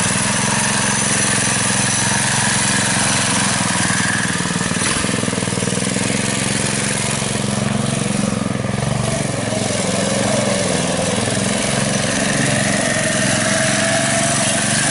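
Mini bike's small gasoline engine running steadily, its pitch wavering up and down a little around the middle.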